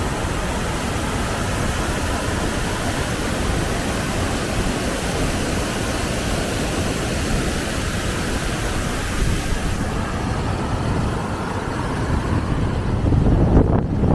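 Steady, even rushing noise, with low gusts of wind buffeting the microphone near the end.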